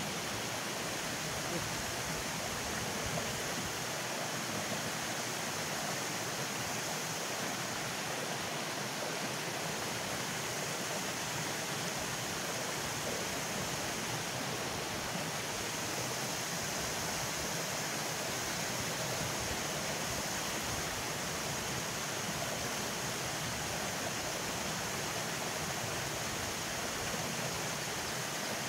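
Water spilling over a small concrete river weir: a steady rushing.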